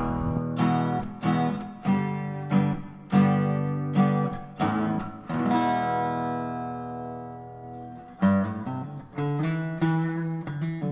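Background music on strummed acoustic guitar: chords struck in a steady pattern, with one chord left ringing and fading for a couple of seconds past the middle before the strumming picks up again.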